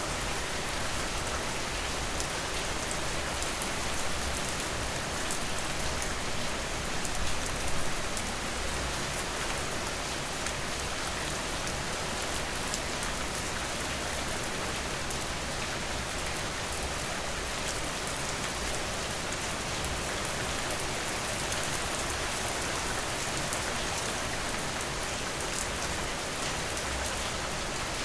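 Steady rain falling on a surface, an even hiss with fine scattered drip ticks.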